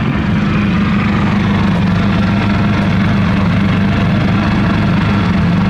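Two inverter generators, a Harbor Freight Predator 3500 and a Champion 3400, running together at eco-mode idle, heard up close as a steady engine hum.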